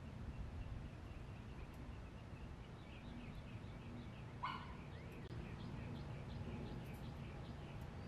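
Wild birds chirping: a quick run of short, repeated high notes begins about a third of the way in, with one louder, sharper call about halfway, over a steady low rumble of wind.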